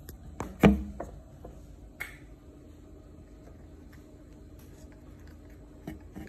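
A few sharp clicks and knocks from a hand handling a plastic fan blade and its hub nut on the motor shaft. The loudest comes about a second in, another follows a second later, and softer clicks come near the end.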